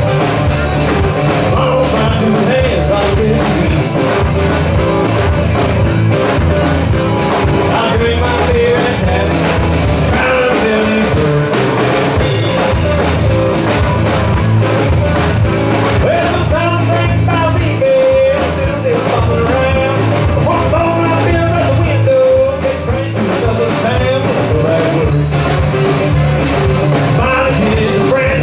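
Live band playing amplified rock music: a man singing over acoustic guitar, electric guitar, bass guitar and drum kit.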